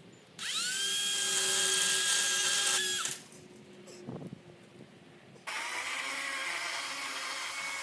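Chainsaw run at full speed in two spells. The first spins up with a quick rise in pitch, runs steadily for about two and a half seconds, then stops sharply. The second starts suddenly about five and a half seconds in and keeps running.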